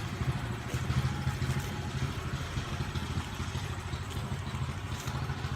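Engine of a dewatering pump running steadily at a constant speed.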